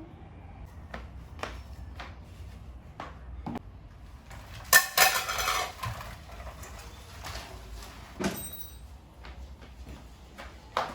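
Household objects being handled while tidying a room: scattered light knocks and clatter, a loud scraping rustle lasting about a second around the middle, and a sharper knock with a short ringing tone a few seconds later.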